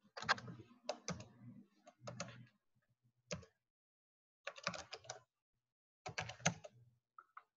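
Computer keyboard keys being typed in short bursts of a few keystrokes each, with pauses of about half a second to a second between bursts.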